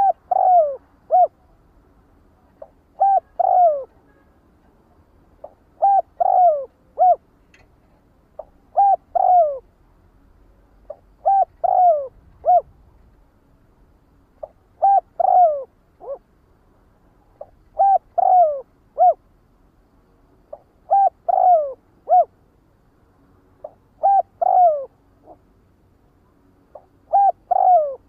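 Spotted dove cooing: a short three-note phrase repeated about every three seconds, ten times over.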